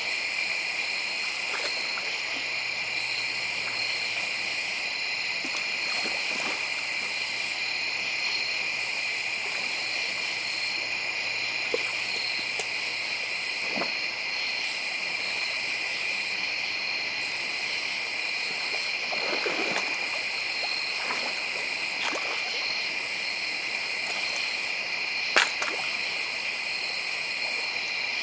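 Night insect chorus: a steady high-pitched drone, with a very high buzz pulsing on and off about every two seconds. A sharp click near the end.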